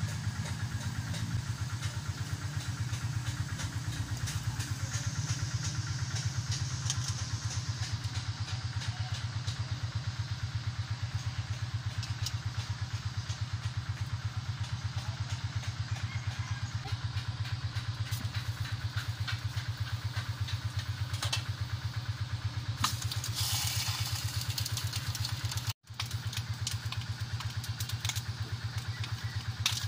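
A small engine idling steadily nearby, a low drone with a fast, even pulse; it drops out for a moment near the end.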